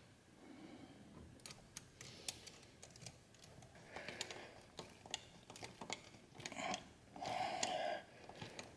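Ratchet wrench clicking as it tightens the worm-drive hose clamp on the intake filter, in irregular runs of a few sharp clicks a second, with some soft handling noise in the second half.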